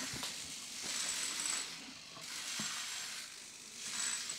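Hobby servo motors in the feet and hips of a 3D-printed walking robot, whirring and grinding through their gears as they step. The whir swells and fades in a repeated rhythm.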